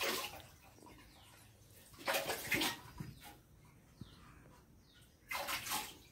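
A spoon stirring and scooping thin rice-flour batter in a metal bowl: three short wet sloshing bursts, roughly two to three seconds apart.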